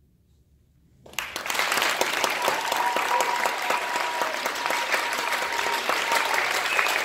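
A second of near silence, then audience applause breaks out and carries on steadily.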